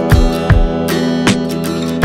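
Background music: strummed acoustic guitar with a steady beat, a little over two strokes a second.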